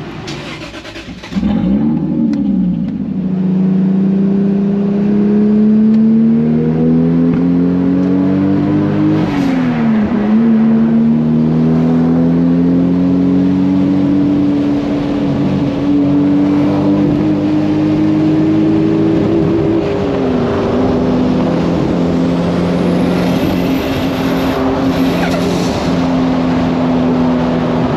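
Turbocharged MK4 Toyota Supra's inline-six pulling up through the gears, heard from inside the car: the engine note climbs steadily and drops at gear changes about two, nine and twenty seconds in, then holds steady at cruise.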